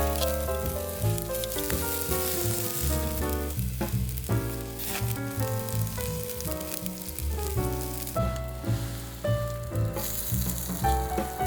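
Lamb meat sizzling as it fries on a hot griddle, with background music playing.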